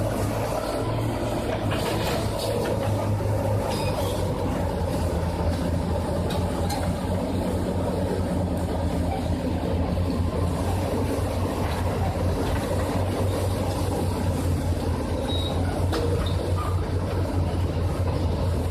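Komatsu D355 bulldozer's diesel engine running steadily, a deep low hum with a few faint clicks and rattles over it.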